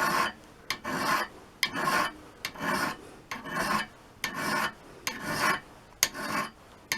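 Ceramic sharpening stone scraped in repeated hand strokes along the steel cutting edge of a spade drill bit, a little more than one stroke a second, with a short click between some strokes.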